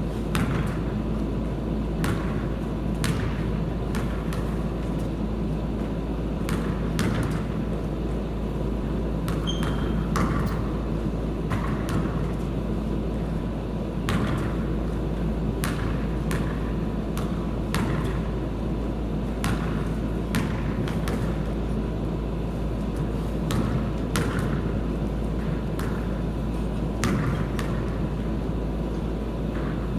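Basketball bouncing on a hard floor: sharp, irregular thuds about every one to two seconds over a steady low rumble.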